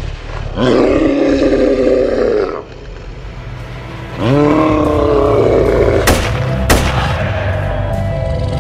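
Two drawn-out monster roars, each rising in pitch as it starts, the second running on, then two sharp gunshots about half a second apart, over a steady low music drone that begins near the end.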